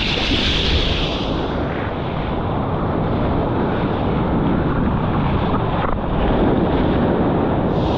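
Steady wind on the microphone mixed with the rush of ocean surf.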